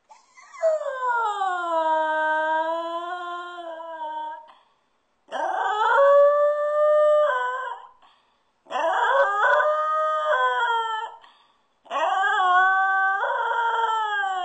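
A dog howling in four long howls with short breaks between them. The first slides down in pitch; the later ones waver up and down.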